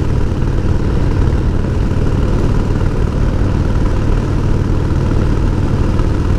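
1988 Harley-Davidson Heritage Softail's 1340 cc Evolution V-twin running steadily while riding, with steady road noise.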